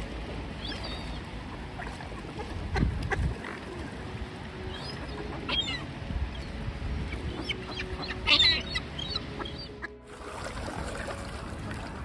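A mixed flock of waterbirds calling in short, scattered calls, with the loudest flurry about two-thirds of the way through, over a steady low rumble.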